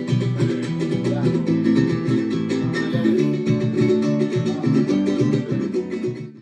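Son jarocho music: strummed and plucked string instruments playing a fast rhythmic pattern. It cuts off abruptly at the end.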